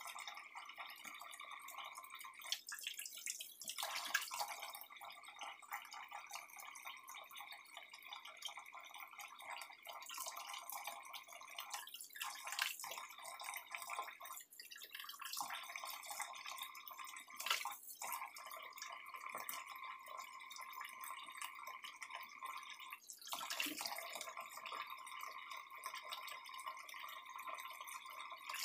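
Kitchen tap running into a stainless steel sink while dishes and utensils are rinsed by hand, the stream's splash breaking up now and then as hands pass through it. A few short clinks of utensils.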